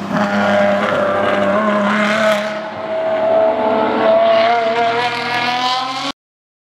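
Ferrari V12 track car's engine running hard, a fairly steady, loud note that rises a little in pitch, then cuts off suddenly near the end.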